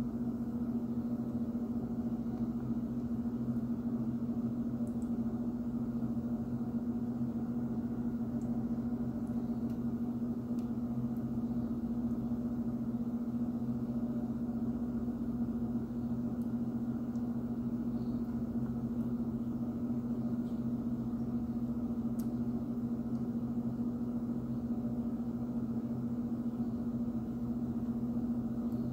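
A steady electrical hum, as from a running appliance motor or fan, with a few faint clicks.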